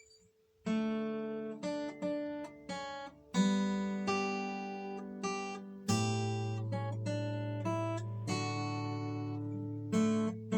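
Yamaha steel-string acoustic guitar, improvised playing: after a brief silence, chords are struck about a second in and then several more times, each left to ring out.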